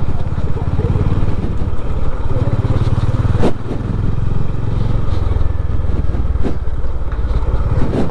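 Honda CB350 RS single-cylinder motorcycle engine running at low riding speed, a steady low pulsing, with a few short sharp knocks about three and a half, six and a half, and eight seconds in.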